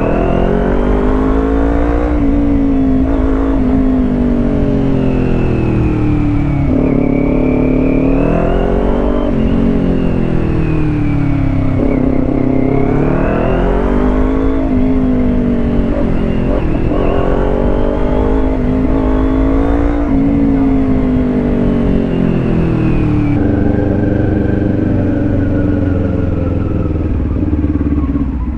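Kawasaki Ninja 400's parallel-twin engine running while the motorcycle is ridden. The revs rise and fall again and again, with sudden drops in pitch where gears change.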